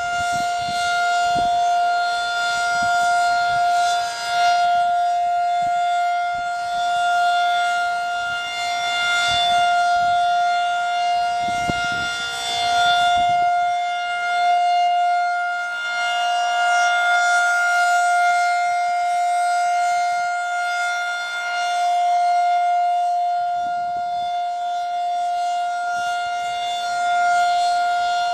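Federal Signal 2001-SRN rotating outdoor warning siren sounding the steady Alert tone at full pitch. Its loudness swells and fades slowly, about every six seconds, as the rotating horn turns toward and away.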